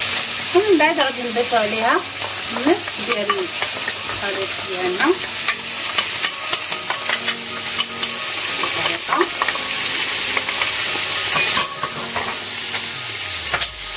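Pieces of chicken breast and garlic frying in olive oil in a pan, sizzling steadily, with a utensil clicking and scraping against the pan as they are stirred.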